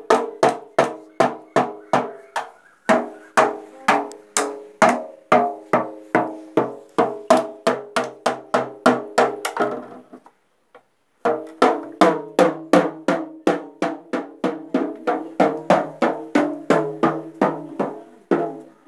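Steady drumming: sharp, evenly spaced strokes, about three or four a second, each with a ringing pitched tone. It breaks off completely for about a second near the middle, then starts again.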